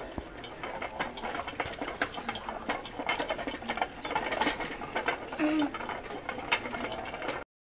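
Hamster moving in a plastic exercise wheel, giving an irregular clatter of light plastic clicks and rattles that stops abruptly near the end.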